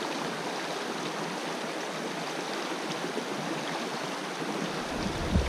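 Small forest river running fast and shallow, its current rushing and rippling steadily.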